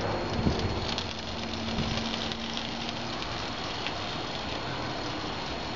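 Barbecue sauce sizzling on chicken wings on a smoker's hot grate as it is brushed on: a steady hiss with a few faint ticks.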